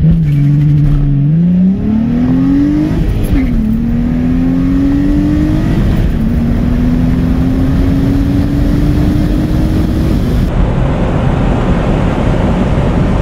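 Sports sedan's engine during a full-throttle launch, heard from inside the cabin. The revs are held steady for a moment, then climb, dropping at two upshifts about three and six seconds in and rising again through each gear. About ten seconds in the engine note cuts off as the driver lifts off, leaving loud road and wind noise under hard braking.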